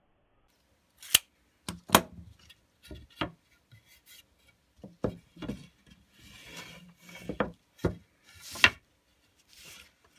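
Pallet wood boards being handled and set down: a string of sharp wooden knocks and clatters, with boards scraping against each other around the middle and again near the end.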